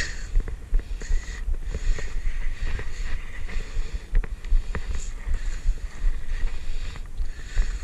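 Wind buffeting the microphone in a steady low rumble, over the faint whir and scattered small clicks of a spinning reel being cranked to reel in a hooked queenfish.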